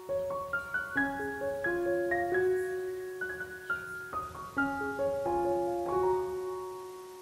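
Background piano music: single notes and chords struck and left to ring, softening near the end.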